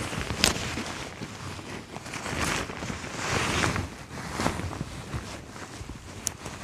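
Boots crunching in snow and clothing rustling as a person steps and crouches, in soft swells about once a second. There is a sharp click about half a second in.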